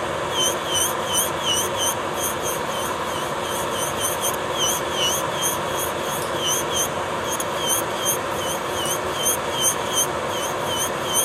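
Electric nail drill (e-file) running steadily, its bit grinding down a thick layer of gel polish on a fingernail in quick repeated passes. A scratchy chirp comes about three times a second.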